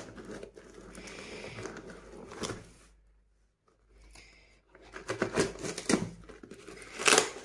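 Cardboard shipping box being opened by hand: brown paper wrapping and packing tape rustled and torn. There is a short quiet pause near the middle, then louder rips and crinkles.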